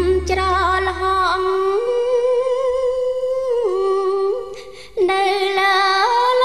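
A solo singer holding long, slightly wavering notes of a slow song over light backing. The low accompaniment fades out after about a second and a half, and the voice breaks off briefly about four and a half seconds in before going on.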